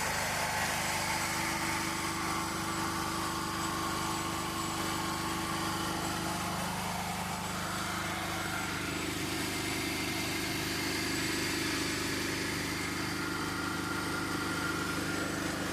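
Generator set's engine running steadily at a constant speed, its tone shifting slightly about seven seconds in.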